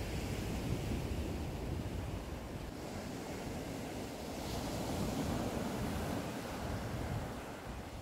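Sea surf breaking and washing up a sand-and-shingle beach, with strong wind rumbling on the microphone; a wave swells louder and washes in about halfway through.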